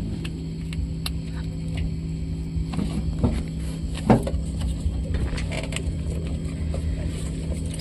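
An engine idling steadily, a low even rumble with a constant hum.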